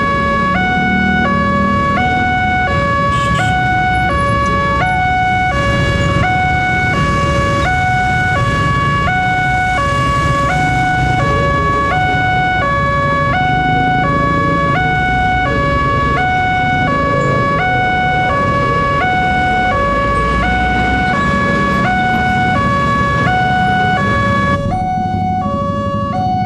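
Railway level-crossing warning alarm sounding its new alarm tone: two pitches alternating back and forth in a steady, regular pattern, with traffic rumble underneath. It becomes slightly fainter near the end.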